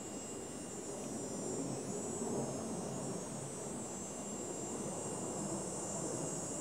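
Steady low rumble of distant engine noise, with a high, even insect drone above it.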